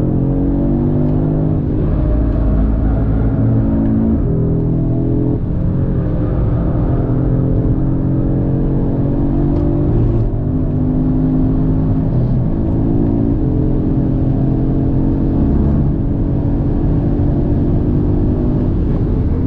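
Audi RS3's turbocharged 2.5-litre five-cylinder engine pulling hard on a race track. It climbs through the revs and drops back at gear changes several times, over steady tyre and road rumble.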